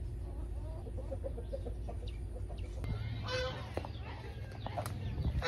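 Domestic waterfowl calling: a quick run of short, low calls, then a louder, harsher call about three seconds in and another near the end.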